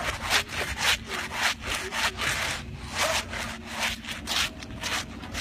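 Laundry being scrubbed by hand: a bar of soap rubbed hard back and forth over a wet garment lying on a concrete slab, in quick, regular rasping strokes, about three or four a second.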